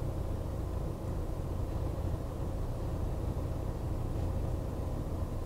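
Steady low rumble inside the cab of a Renault Trafic Blue dCi 170 van, its diesel engine running, with a faint steady hum above it.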